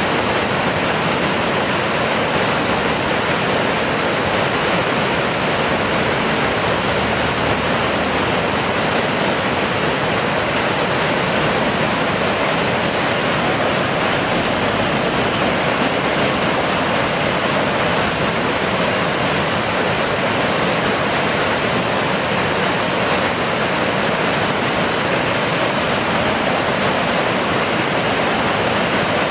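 Brown floodwater rushing over and cascading off a submerged concrete footbridge in a storm-swollen creek, a loud, steady rush of water.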